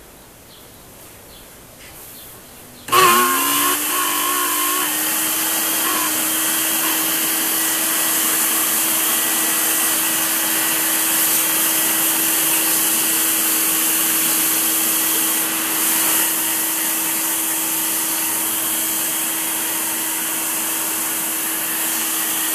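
Wet/dry shop vacuum switched on about three seconds in, its motor spinning up quickly and then running steadily with a constant hum under the rush of air. It is sucking dust and dirt out of an old monitor's circuit board, the dirt being what had silenced the monitor's sound.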